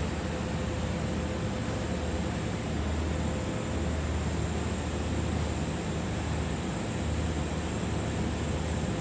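Steady hiss and low hum of a welding arc running on 2-inch schedule 10 stainless steel pipe, with no breaks or pops.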